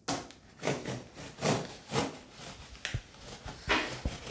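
Large knife cutting through the corrugated cardboard of a monitor box, the blade drawn along the box edge in short scraping strokes, about two a second.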